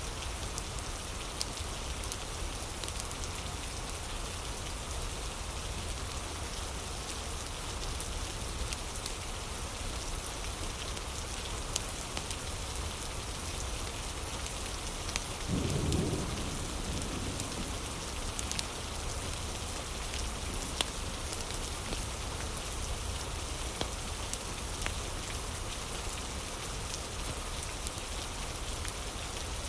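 Steady rain mixed with the scattered sharp crackles of a wood fire, with one brief low rumble about halfway through.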